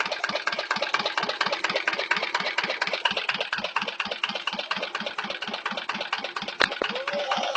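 Jiangdong single-cylinder diesel engine running steadily on test, its firing beats coming in a quick even rhythm. A single sharper knock stands out about six and a half seconds in.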